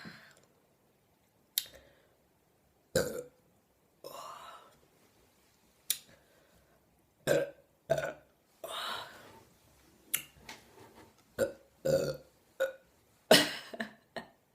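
A woman burping over and over, about a dozen short burps with two longer ones about four and nine seconds in, brought up by drinking carbonated Sprite.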